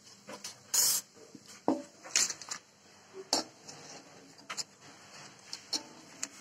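Kitchen clatter of a metal slotted spoon against a steel bowl and fried potato chips rattling as they are handled: about half a dozen sharp knocks and short rattles, the loudest a longer rattle about a second in.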